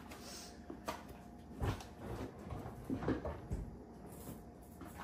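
A few light knocks and taps of things being handled at a kitchen counter, scattered about a second apart.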